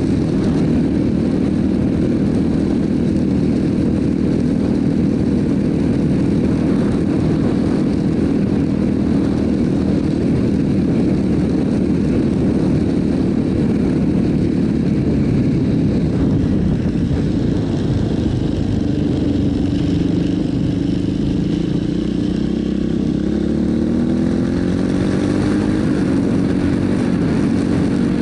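Yamaha Warrior 350 quad's air-cooled single-cylinder four-stroke engine running under load on a dirt track. Its note holds steady, then rises about two-thirds of the way in as the quad speeds up.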